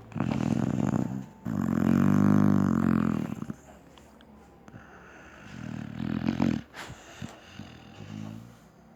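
A female Dogo Argentino snoring in deep sleep: four pitched snores of uneven length, the second the longest and loudest at nearly two seconds, with quieter breathing between them.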